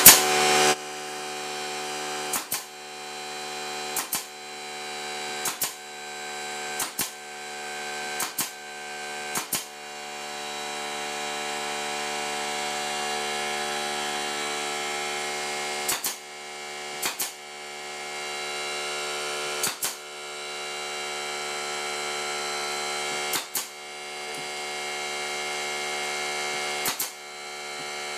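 Small air compressor running with a steady hum while a pneumatic crown stapler fires staples into the wooden top bars of beehive frames: about a dozen sharp shots, a run of six roughly every second and a half, a pause of about six seconds, then more at uneven spacing.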